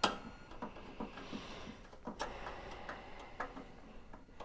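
Screw being driven into the CRT monitor's metal chassis bracket with a hand screwdriver: a sharp click at the start, then a run of small, uneven ticks and clicks.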